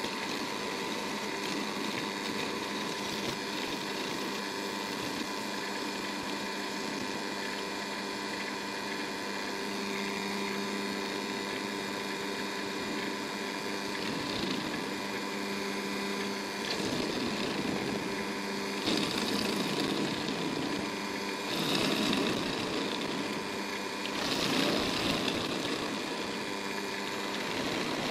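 Lathe motor running steadily while a handheld turning tool cuts a spinning crayon-wax bowl blank, a constant hum under the scrape of the cut. The cutting grows louder in several bursts about two-thirds of the way through and again near the end.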